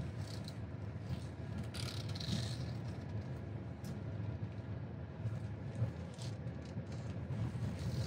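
Mahindra XUV300 driving slowly over a rough dirt road: a steady low engine and road hum, with a brief scraping rustle about two seconds in and a few light knocks later.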